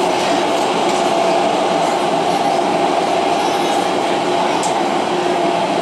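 Inside an MTR Tung Chung Line CAF train running at speed through a tunnel: a steady loud rumble of wheels on rail, carrying a fast, continuous pounding from flat spots on the wheels that blurs into a hovering-helicopter-like throb.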